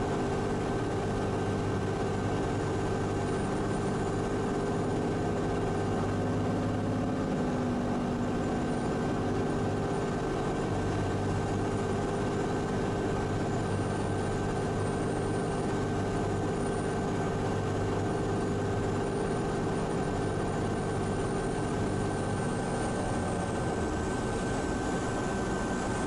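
Cirrus SR22's six-cylinder piston engine and propeller droning steadily in the cockpit on final approach to landing, with a slight change in the low drone about eight seconds in.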